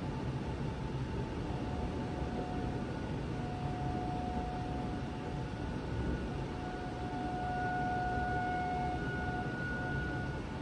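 Distant outdoor tornado warning siren sounding one steady pitch that swells and fades as it comes and goes, louder in the second half, over a steady low rushing noise.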